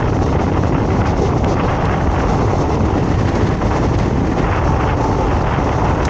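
Steady running rumble of a moving vehicle, with wind noise on the microphone.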